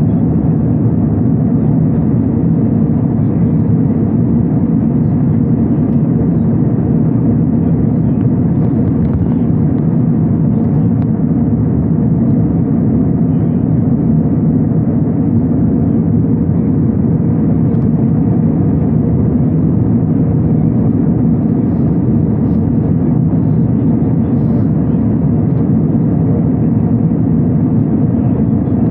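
Jet airliner cabin noise in flight: the even, steady rush of the engines and airflow heard from inside the cabin, mostly low-pitched.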